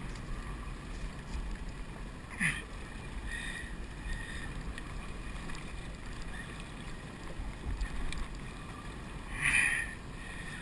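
Wind and water noise on a small motorboat at sea, a steady rushing hiss with low rumble on the camera microphone. Two short high-pitched cries cut through it, one about two and a half seconds in and one near the end.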